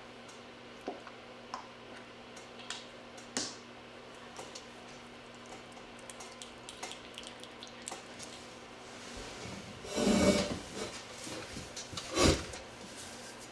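Scattered light clicks and taps of hands working with manicure tools at a table, with a louder rustling knock about ten seconds in and another short one about twelve seconds in.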